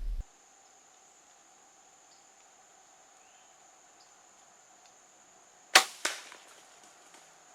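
A bow being shot: a sharp snap as the string is released, then about a third of a second later a second, softer smack as the arrow strikes.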